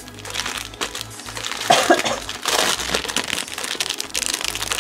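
Plastic packaging crinkling with irregular crackles as small plastic bags of diamond-painting drills are handled over the plastic-covered canvas.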